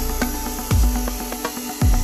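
Background electronic music with deep bass hits that drop in pitch, about once a second, over steady held notes.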